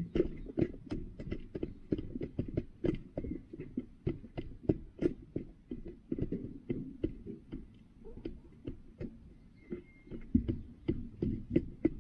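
Hens pecking feed from a plastic feeder pan right by the microphone: an irregular run of sharp taps, several a second.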